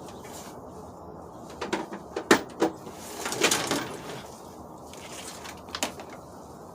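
A few sharp clicks and knocks, then a brief rustle and one more click near the end, from hands working on loose car wiring and trim parts.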